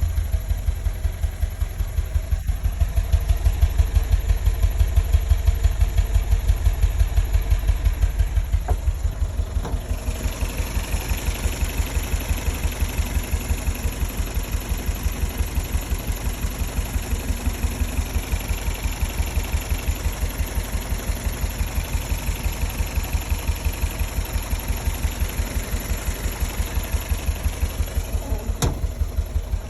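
Toyota MR2 engine idling with a steady, even pulse. About ten seconds in, a higher hiss joins the idle. This is the unexplained noise at idle that the owner is asking about.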